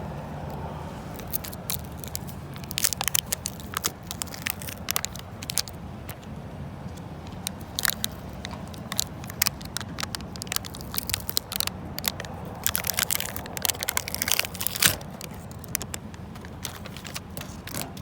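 Irregular clicking, crackling and scraping from tire plug kit tools and parts being handled, with the sharpest clicks about 3, 8 and 13 to 15 seconds in.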